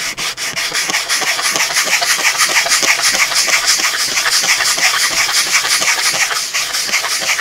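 Plastic model-kit dormer piece rubbed back and forth on a sheet of sandpaper in quick, even strokes, a steady scraping: its edges being ground down flat.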